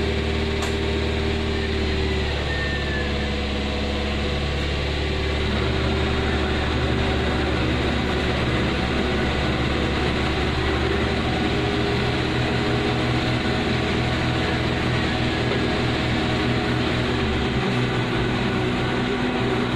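Car engine idling steadily at operating temperature, a continuous hum with a low drone that drops away near the end.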